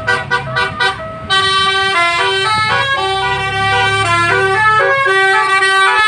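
Bus 'telolet' musical horns playing a tune: a run of short quick notes, a brief break about a second in, then longer held notes stepping up and down in pitch, with an engine running underneath.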